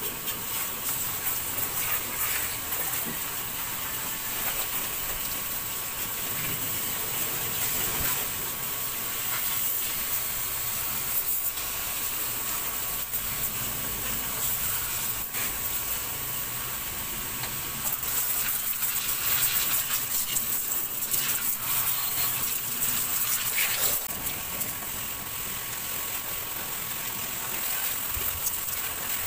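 Pressure-washer water jet spraying from a hose nozzle onto an engine bay, a steady hiss with a faint steady whine, swelling louder for a few seconds past the middle.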